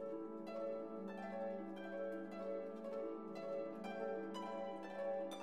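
Instrumental background music, a light melody of plucked-string notes changing about every half second.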